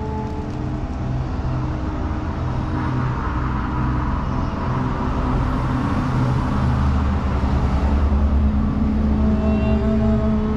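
A road vehicle passing on the street, building to its loudest about eight seconds in, over faint held notes of improvised violin and flute.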